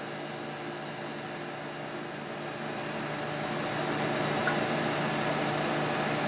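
Vintage Kenmore dehumidifier running just after start-up: its refrigerant compressor and fan give a steady hum with an even whoosh, growing louder about three seconds in. It is running normally, switched on by a newly replaced humidistat.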